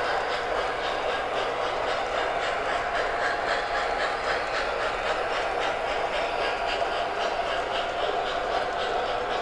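MTH O scale model trains running on the track: a steady rolling rumble of wheels and motors, with a quick, even clicking from the wheels over the rail joints.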